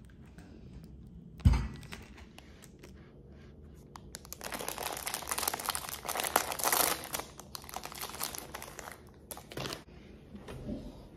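A single thump, then a plastic packet being torn open and crinkled by hand for several seconds, loudest in the middle.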